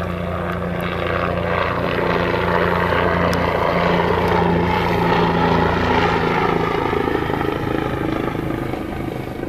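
Bell OH-58D Kiowa Warrior helicopter flying past, its rotor and turbine running steadily. The sound swells to its loudest about halfway through and fades a little toward the end.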